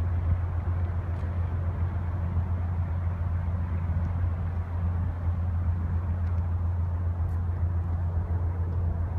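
GE P32-8WH (Dash 8-32BWH) passenger locomotive's 12-cylinder 7FDL-12 diesel prime mover running under power as the train pulls away, a steady low drone.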